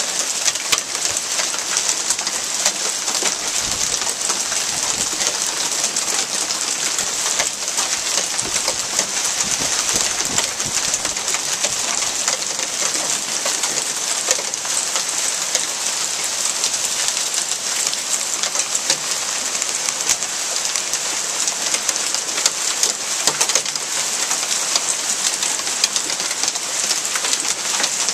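Heavy rain mixed with hail falling on pavement and foliage: a steady, dense hiss made of countless tiny impacts.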